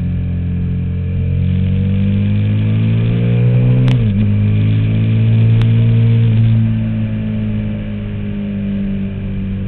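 KTM Super Duke's V-twin engine under way: the revs climb, a quick upshift about four seconds in drops the pitch, it pulls again, then the revs fall away as the throttle is rolled off a couple of seconds later.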